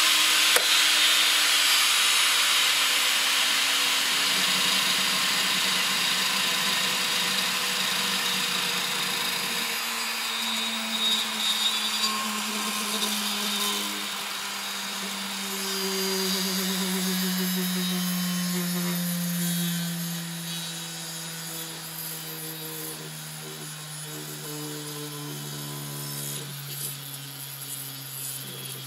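Motor-driven rotor of a 3D-printed gyroscope whirring, its hum slowly falling in pitch and fading as the rotor winds down. A few light knocks come around eleven to twelve seconds in as the gimbal frame is handled.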